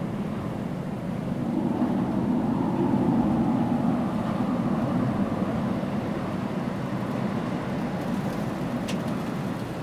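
Steady rumble of vehicle noise, swelling a few seconds in and then easing off.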